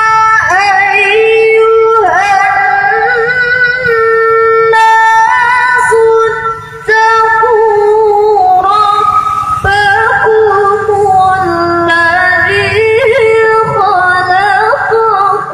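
A girl's voice reciting the Quran in melodic mujawwad style, holding long, high, ornamented notes that waver and turn, with one short break for breath about seven seconds in.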